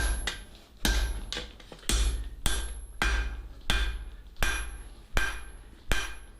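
Hand forging on an anvil: hammer blows drawing out hot 3/4 inch steel rod toward a flat 3/8 by 1 inch section. There are about nine heavy blows at a steady pace of roughly one every 0.7 s, each ringing off the anvil, with lighter taps between them.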